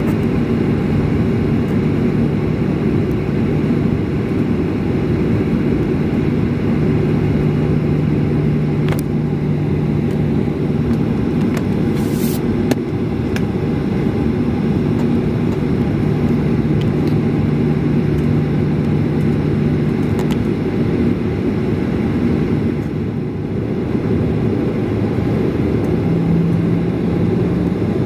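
Cabin sound of a Boeing 737-800 taxiing: the steady drone of its CFM56-7B engines at low thrust, heard from a window seat over the wing. A brief hiss comes about twelve seconds in, and the drone's pitch rises slightly near the end.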